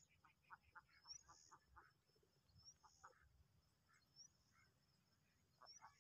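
Domestic ducks giving faint, short quacks: a quick run of calls in the first two seconds, then scattered single quacks.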